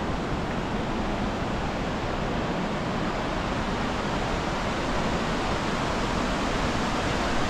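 Steady rushing of a rocky mountain river's white water, an even noise with no breaks.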